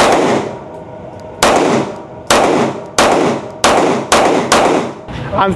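Daniel Defense H9 9mm pistol being fired, seven shots at an uneven pace that quickens toward the end, each with a sharp report and a ringing decay.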